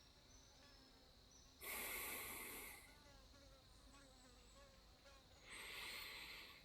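Two slow, audible breaths close to the microphone, one about two seconds in and one near the end, as a demonstration of slow calm breathing. Underneath is faint night-forest ambience: a steady cricket-like insect trill with small chirps.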